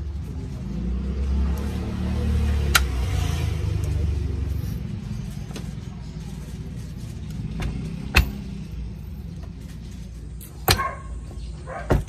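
A vehicle engine rumbling nearby, swelling over the first few seconds and then fading. A few sharp metal clicks and knocks come from the halves of an alternator housing being handled and fitted back together; the loudest is about eight seconds in.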